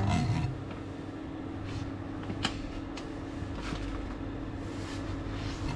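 Induction hob running with a steady hum while a pan of milk heats on it, with a few faint clicks about two to three seconds in.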